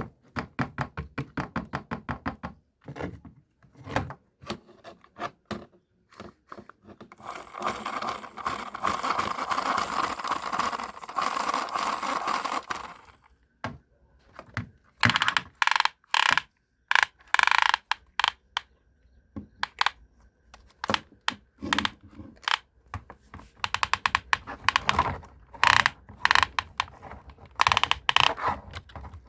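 Hard plastic clicks, knocks and scrapes from a toy JCB construction vehicle being handled, with several seconds of continuous rattling in the middle.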